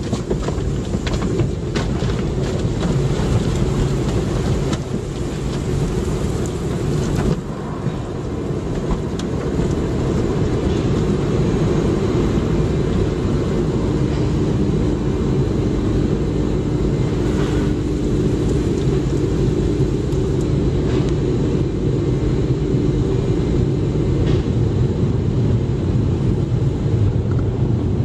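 Automatic car wash running over a car: a steady, loud rush of water spray and machinery, with a steady hum coming in about halfway through for several seconds.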